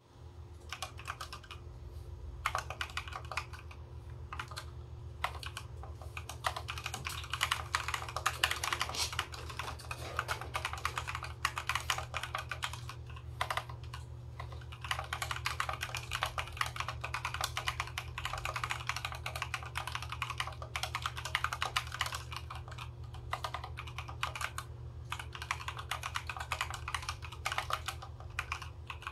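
Mechanical keyboard typing on stock Konpeitou switches in an FR4 plate with PBT keycaps: fast, continuous keystrokes with a few brief pauses.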